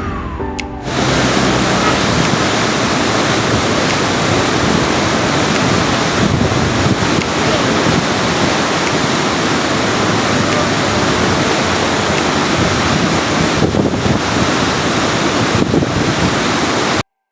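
Steady roar of rushing water, loud and even, cutting off suddenly near the end.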